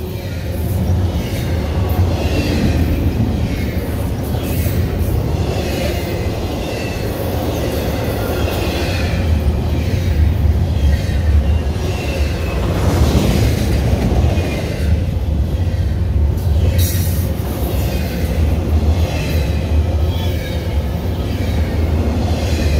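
Double-stack container well cars of a freight train rolling past at speed: a steady rumble of steel wheels on rail, with faint high wheel squeals coming and going.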